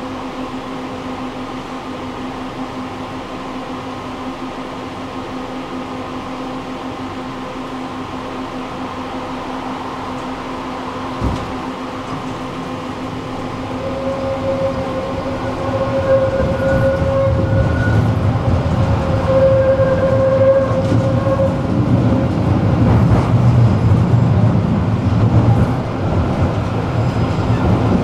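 Tram running with a steady electrical hum and a single knock about eleven seconds in. From about fourteen seconds, motor whine in short tones comes in and a low rolling rumble grows louder as the tram gathers speed.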